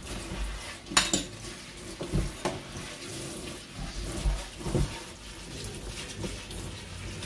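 Kitchen tap running into a stainless steel sink while green onion stalks are rubbed and rinsed under it by hand, with a few knocks and clatters against the sink, the sharpest about a second in.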